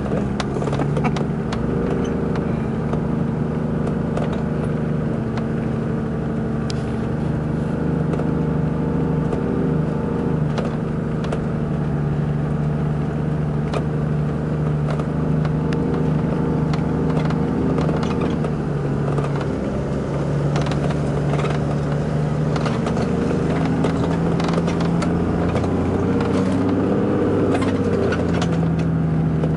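Toyota Land Cruiser engine running steadily while under way on a rutted sandy track, heard from inside the cab, with frequent clicks and rattles from the vehicle over the bumps. Near the end the engine note rises and falls as it climbs over a sand bank.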